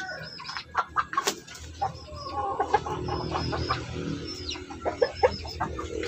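Backyard chickens clucking around the feeder's hand, with short high sliding calls mixed in and scattered sharp taps.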